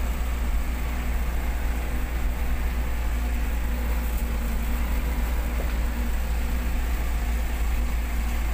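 Vehicle driving on a rough dirt and gravel road: a steady low engine rumble with road noise and a faint steady hum.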